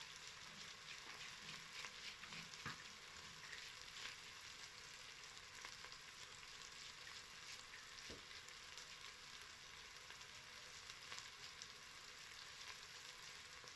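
Food frying in a pan: a soft, steady sizzle with fine crackles. Two light knocks come through, one a few seconds in and one about halfway.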